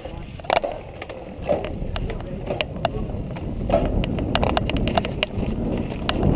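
Mountain bike rolling down a dirt singletrack, its tyres rumbling on the ground and the frame and parts clattering with sharp, irregular clicks over bumps. Wind noise on the microphone builds as it gathers speed.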